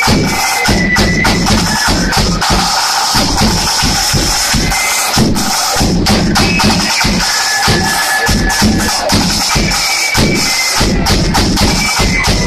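Marching flute band playing a tune: high flute melody over a steady bass drum beat and rattling snare drums.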